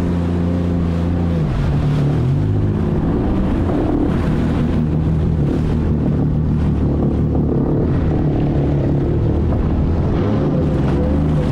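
Jet ski (personal watercraft) engine running under way at speed. Its pitch dips and wavers about a second and a half in, then holds fairly steady.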